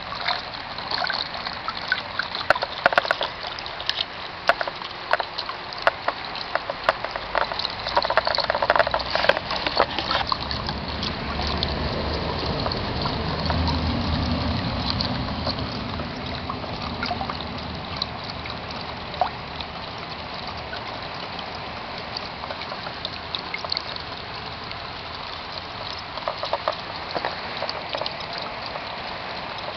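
Rainwater dripping and trickling, with many sharp drip-like taps in the first ten seconds, then a louder rush of running water that swells mid-way and eases off.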